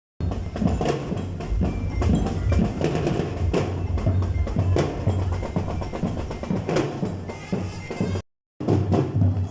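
Parade drums playing a marching beat, snare and bass drum, which cut out for a moment near the end.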